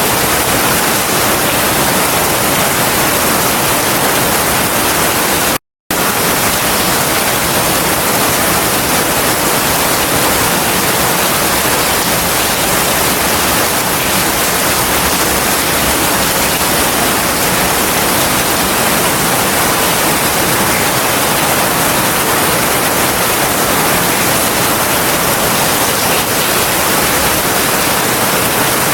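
Heavy rain falling steadily, an even, unbroken hiss with no thunder. It cuts out completely for a fraction of a second about six seconds in, then resumes.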